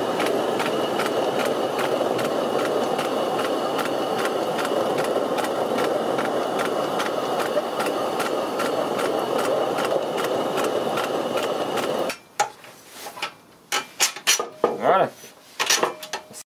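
Homemade stone grain mill running, its motor whining steadily as the granite millstones grind grain, with a faint regular ticking. About twelve seconds in it cuts off, followed by a few light metal clicks and knocks.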